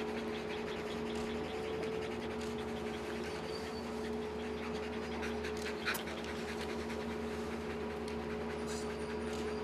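Police detector dogs panting steadily as they sit on leash, over a steady low hum, with one brief sharp sound about six seconds in.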